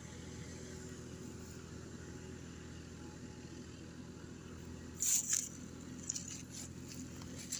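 Distant tractor engine running, a steady low drone. About five seconds in, a brief crackling rustle close to the microphone.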